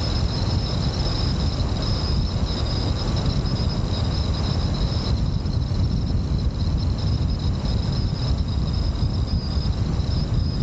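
Wind rushing and buffeting over a roof-mounted camera's microphone, mixed with the tyre and road noise of a car driving along a lane, with a steady high-pitched whine over it.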